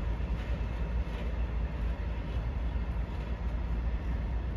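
Freight train of tank wagons rolling away over the rails, a steady low rumble.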